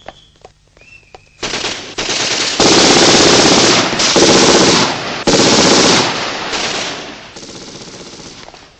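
Automatic gunfire from several weapons firing at once, starting about a second and a half in. It comes as a string of long bursts with short breaks, loudest in the middle, and falls off to lighter firing near the end.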